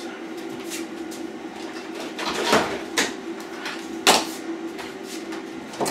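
Handling noises on a workbench: a few separate knocks and scrapes as a monitor neck board is moved into place for testing, the strongest about two and a half and four seconds in, over a steady low hum.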